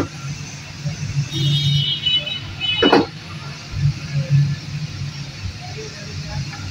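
A low, steady engine rumble, like a vehicle running nearby, with a single sharp click about three seconds in.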